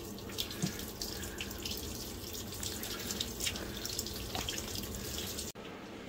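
Water spurting from the open end of a garden hose and splashing onto a wooden plank: a steady hiss with small splashes. About five and a half seconds in it cuts suddenly to a softer hiss.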